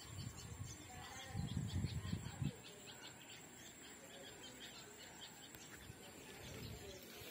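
Faint birds chirping in the background, with low rumbles on the microphone at the start and again between about one and two and a half seconds in.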